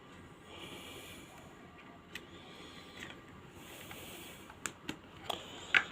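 Light clicks and taps of a battery and plastic parts being handled and fitted into a handheld pulse oximeter, a few scattered and several close together near the end, over a soft on-and-off hiss.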